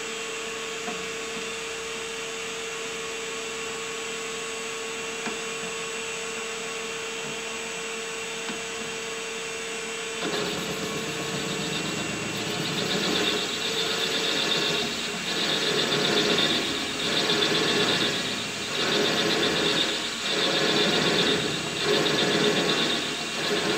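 WM210V bench lathe running with a steady hum and a faint whine. About ten seconds in, its brazed-tip tool starts facing the end of a hardened steel screw, adding a loud scraping cutting noise that swells and fades about every second and a half. The lathe takes the cut without strain.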